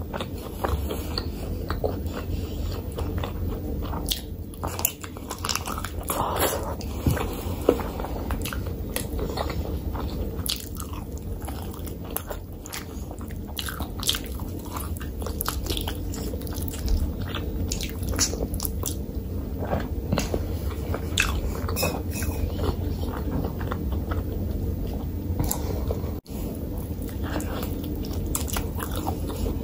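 Close-miked eating sounds: biting meat off a mutton bone and chewing curry, with many short wet mouth clicks, over a steady low hum.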